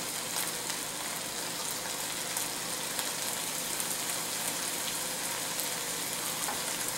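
Garlic butter and olive oil sizzling steadily in a hot nonstick fry pan, with a fine crackle; diced red onion is frying in it by the second half.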